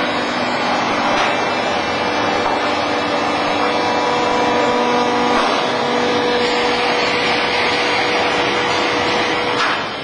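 Horizontal baler's hydraulic power unit running with a steady mechanical noise and hum; a steady whine joins about four seconds in and cuts off near the end with a brief knock.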